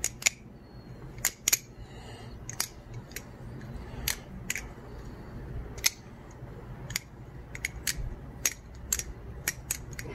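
Titanium channel-handle balisong trainer with zen-pin pivots and bushings being flipped, its handles and blade clicking sharply and irregularly as they swing open and latch closed. The clicks are quiet and sound very dialed: tight pivots with no play or tap.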